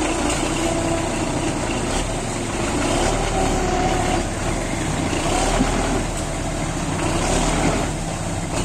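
Tractor diesel engine running steadily as its front loader works into a pile of corn crop.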